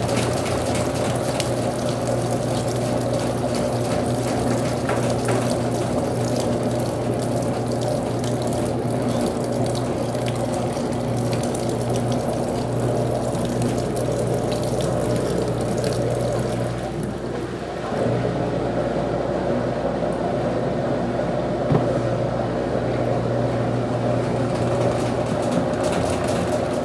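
Brastemp Clean 7 kg washing machine in its rinse cycle: water rushing in the tub over a steady mechanical hum, dipping briefly about two-thirds of the way through.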